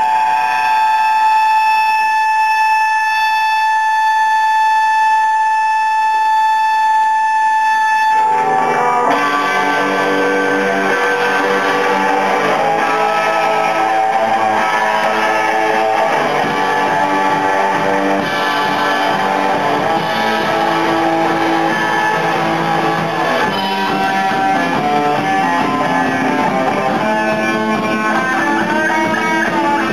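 Live rock band: a single electric guitar tone held steady for about eight seconds, then the full band comes in loud, with electric guitars, bass and drums.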